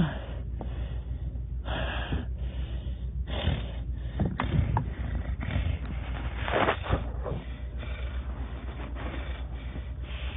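A person breathing close to the microphone: several noisy breaths a second or two apart, over a low steady hum.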